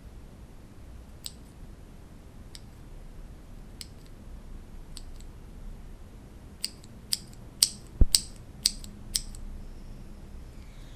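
Cherry MX mechanical keyboard switches being pressed: four single keystrokes spaced about a second and a quarter apart, then a quicker run of about eight keystrokes, one near the middle of the run louder, with a deep thud.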